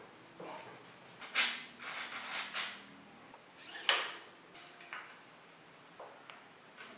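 Rubber grip and plastic trigger shifter being worked onto a chrome handlebar by hand. There are several sharp scrapes and clicks between about one and four seconds in, then a few light ticks.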